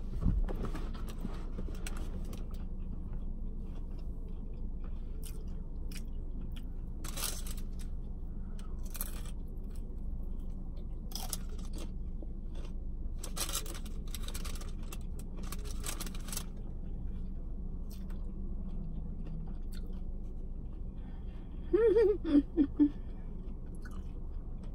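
A person chewing and crunching mouthfuls of fast food, with short crisp crunches at irregular intervals over a steady low hum. Near the end comes a brief murmured vocal sound.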